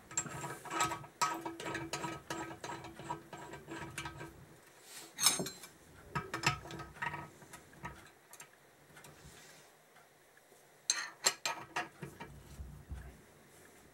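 Metal-on-metal tool sounds from a blind bearing puller being set up in a motorcycle swingarm pivot. There is a run of rapid ratchet-like clicking, a sharp clank about five seconds in, and a short burst of ratchet clicks near the end as the puller nut is turned.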